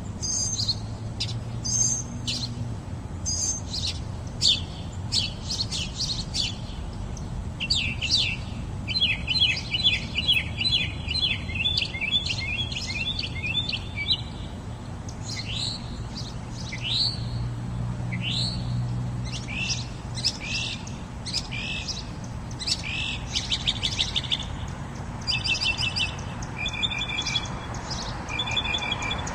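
Several birds chirping and singing: short sharp calls all through, with a fast rattling trill of repeated notes through the middle and again near the end, over a faint low hum.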